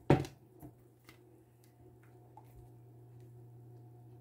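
Plastic measuring cup set down on a counter with one sharp knock, followed by a few faint light ticks, over a faint steady low hum.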